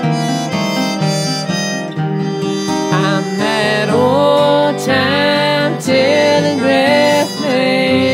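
Acoustic string-band music: a harmonica plays a lead line of sustained notes that bend in pitch, strongest in the second half, over acoustic guitar.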